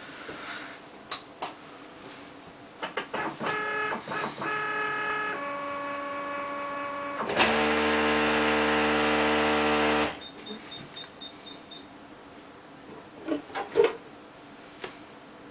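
Canon BJC-5000 inkjet printer's motors running: a few clicks, then steady whining tones that step from one pitch to another, then a loud harsh buzz for about three seconds that stops suddenly, followed by scattered clicks and a couple of knocks near the end. The owner labels the printer faulty.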